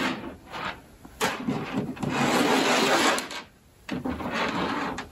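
Hands rubbing and sliding plastic pony beads along yarn over a tabletop: a scraping, rubbing noise in stretches, with a brief lull about two-thirds of the way through.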